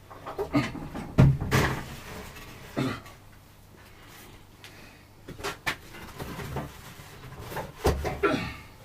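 Irregular knocks and clunks of workshop parts being handled and fitted while mounting a saw on its base.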